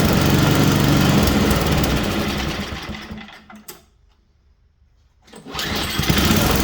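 Small four-stroke snowblower engine running just after a carburettor cleaning. Its sound fades away to near silence for about a second and a half past the middle, then comes back. It is not yet tuned: the carburettor still needs its idle adjusted.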